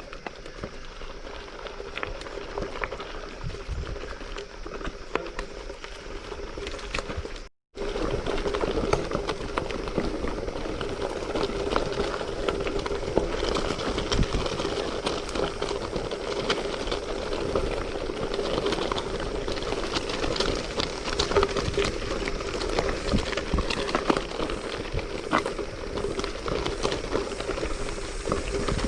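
Bike being ridden along a loose gravel trail: a steady crunch and rattle of tyres on stones and the bike jolting over the surface. The sound cuts out for a moment about seven seconds in.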